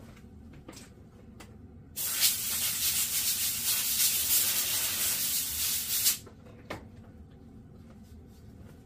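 A burst of compressed air blowing debris off a baitcasting reel's brake magnets: a loud, steady hiss that starts abruptly about two seconds in and cuts off after about four seconds. A few light knocks come before and after it.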